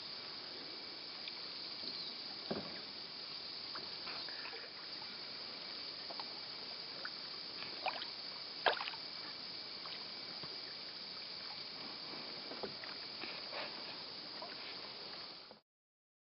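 Canoe paddles dipping and dripping as a laden canoe glides on a calm river: a steady soft hiss with a few light splashes and clicks, the sharpest about nine seconds in. The sound cuts off to silence just before the end.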